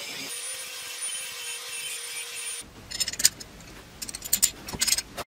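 Steel hinge leaf ground against a spinning power grinding wheel: a steady, high grinding hiss with a faint whine, which stops sharply about two and a half seconds in. After that come light metallic clicks and scrapes as the hinge and a bolt are handled.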